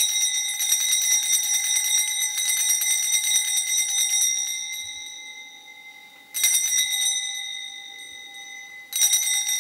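Altar bells shaken in a fast jingle at the elevation of the host during the consecration at Mass. The ringing fades away over the first six seconds and is rung again twice, about six and nine seconds in.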